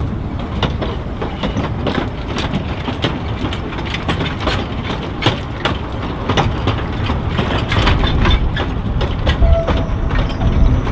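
Narrow-gauge steam locomotive passing with a train of open carriages: a continuous clatter of wheels over the track, with many sharp clicks.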